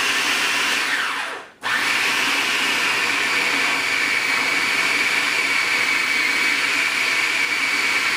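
Electric mixer running at high speed with a steady whine, creaming butter and powdered sugar for frosting. About a second in it spins down with a falling whine and stops briefly, then starts again at full speed and runs on.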